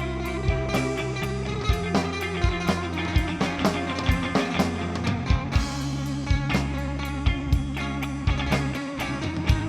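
Instrumental rock music: guitar over bass and a drum kit keeping a steady beat, with a cymbal crash a little past the middle.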